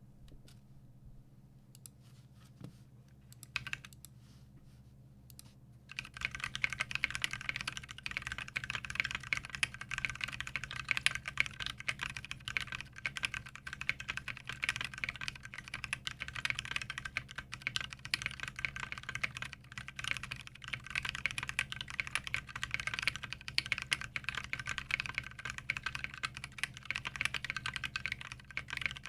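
Typing on a custom 60% mechanical keyboard with Durock Koala tactile switches, a brass plate and PBT keycaps. A few separate keystrokes come first, then about six seconds in it turns into steady, fast, continuous typing.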